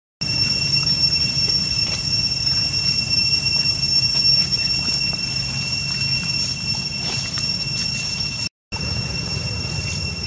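Steady high-pitched drone of cicadas: two even whining tones held without a break over a low outdoor rumble. It drops out for an instant near the end.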